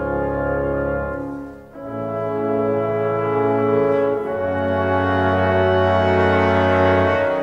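Orchestra playing a slow instrumental introduction of long held chords, with brass prominent. The sound drops away briefly about two seconds in, then the next chord swells up and holds.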